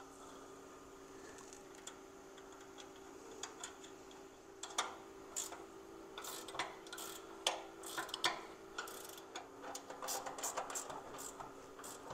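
Hand wrench tightening bolts on a steel tractor seat pan: scattered light metallic clicks and clinks, with a quicker run of small ticks near the end.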